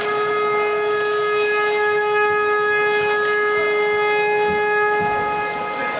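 Ice rink horn sounding one long steady blast of nearly six seconds, the signal that play has stopped.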